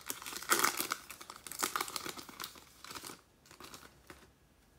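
Foil wrapper of a 2018 Series 1 baseball card pack being torn open and crinkled by hand. The crackling is loudest in the first three seconds, then thins out and stops.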